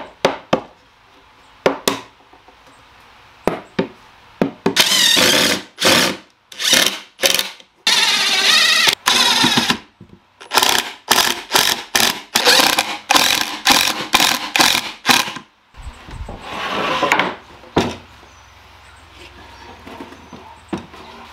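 Cordless impact driver driving pocket-hole screws into plywood, in stop-start bursts. After a few sharp knocks near the start come several runs of a second or two each, then a quick string of short bursts.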